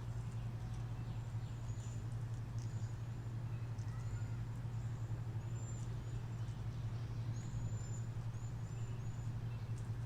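Small birds chirping, short high hooked notes repeated every second or so, over a steady low hum.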